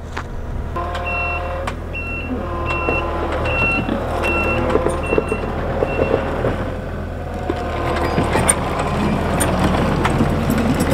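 Skid steer's backup alarm beeping at a steady pace, about two beeps a second, over its running engine as it reverses; the beeping stops a little past halfway, leaving the engine running with some knocks and rattles.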